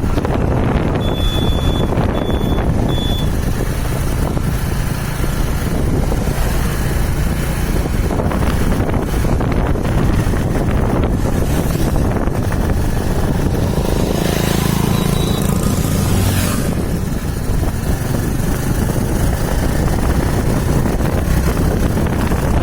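Wind rushing over the microphone and road and traffic noise during a scooter ride. There are three short high beeps about a second in, and a louder swell of traffic noise about two-thirds of the way through.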